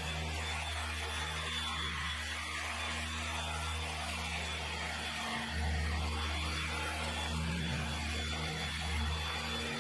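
Electric machine polisher running steadily on a car's painted door panel, working correcting cream into the paint to cut out a scuff; its hum gets a little louder about halfway through.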